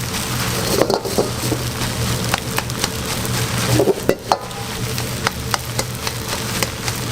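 Egg fried rice stir-frying in a hot pan: a steady sizzle with frequent irregular clicks and scrapes of the spatula against the pan, over a low steady hum.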